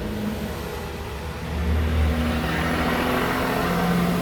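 A motor vehicle's engine running nearby, getting louder about a second and a half in as its pitch shifts.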